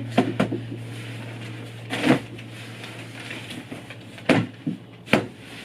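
A new pillow being shaken out by hand: a string of soft thumps with fabric rustling between them. A low steady hum runs underneath and stops about four seconds in.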